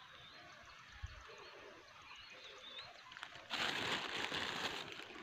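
Faint, thin bird chirps in quiet outdoor background. About three and a half seconds in, a loud rustling burst lasting about a second.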